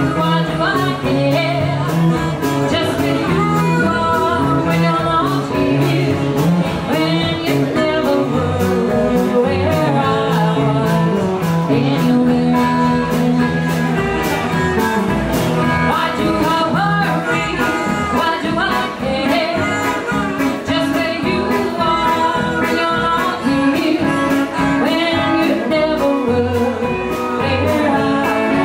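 Live blues band playing: electric and acoustic guitars and drums, with a woman singing and a harmonica wailing over the top.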